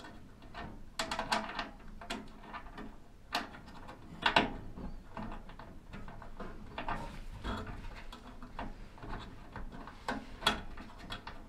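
Scattered metallic clicks, clinks and knocks from the sheet-metal cabinet of a Williams propane direct-vent wall furnace being shifted onto its wall bracket, and from a screw and wrench being set to the bracket near the end. The sharpest knocks come about four seconds in and near the end.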